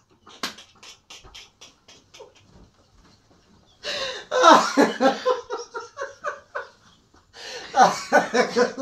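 A man laughing uncontrollably: quiet, breathy gasping pulses at first, then two loud bursts of laughter, about four seconds in and again near the end.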